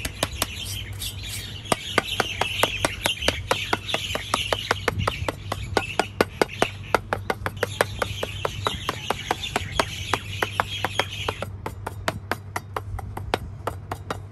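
Rapid sharp taps, about four a second, with birds chirping behind them until near the end, when the chirping stops and the taps go on more sparsely.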